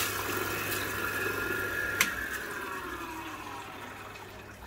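Water running through the carving bench's feed lines while an electric machine motor winds down, its whine slowly falling in pitch and the whole sound fading. A single click comes about two seconds in.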